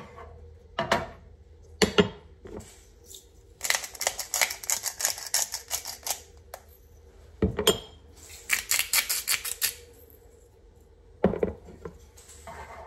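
Cooking sounds: a wooden spatula and utensils knocking against a frying pan and dishes. There are scattered single knocks and two runs of quick, even clinking, about two seconds and one second long.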